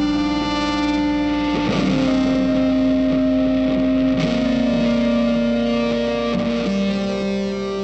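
Background music: a distorted electric guitar holding long notes that step to a new pitch about every two seconds.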